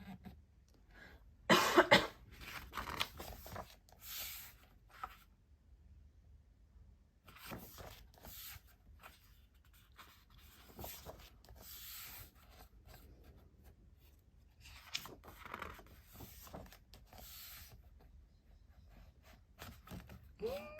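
Glossy photo book pages being turned and handled, with paper rustling and sliding every few seconds and small clicks between. A short, loud burst about two seconds in is the loudest sound.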